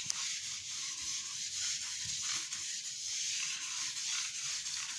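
A hand-held eraser rubbing across a whiteboard in repeated wiping strokes, scrubbing off marker writing: a steady scratchy rub that swells and dips with each stroke.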